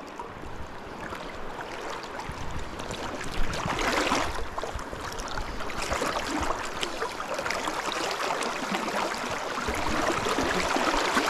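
Fast, shallow creek water rushing over gravel and around the angler's legs, a steady rush that swells briefly a little under four seconds in.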